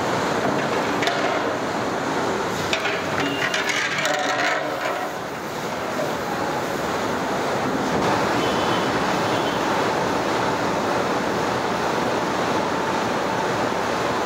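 Large aluminium pot of seasoned water at a steady rolling boil over a wood fire, giving a continuous rushing, bubbling noise. A few knocks and clatters sound in the first five seconds.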